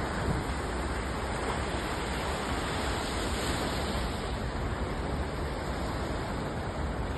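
Small waves washing up a sandy beach: a steady rush of surf with no single loud crash, over a low rumble of wind on the microphone.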